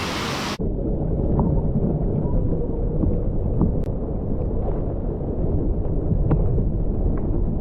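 A waterfall pool's water noise heard with the action camera under water. The bright rushing hiss cuts off abruptly about half a second in, leaving a muffled low rumble with a few faint scattered ticks.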